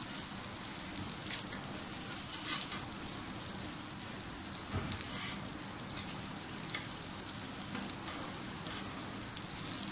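Moong dal cutlets shallow-frying in a little oil on a flat pan: a steady sizzle with scattered crackles.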